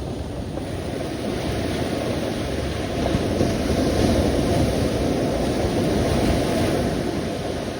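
Sea waves washing in: a steady rushing surf noise that swells about three seconds in and eases off near the end.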